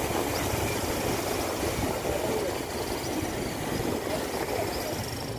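Steady rushing of a swollen river in flood, its fast current running high.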